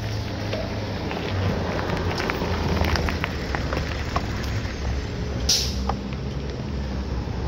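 Steady low rumble of wind and road noise on a camera rig mounted on a moving bicycle, with scattered rattling clicks. A short hiss comes about five and a half seconds in.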